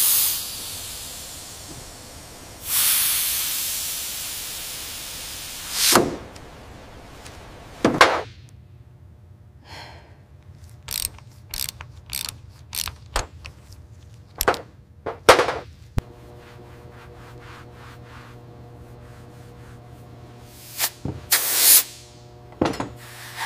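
Workshop sound effects: two long bursts of air hissing, then a run of short clicks, knocks and brief scraping tool noises over a low steady hum.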